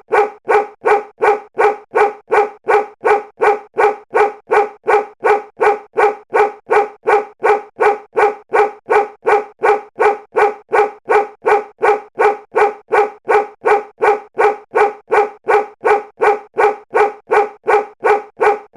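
Looped sound effect of a short pitched bark, repeated evenly at about two and a half barks a second.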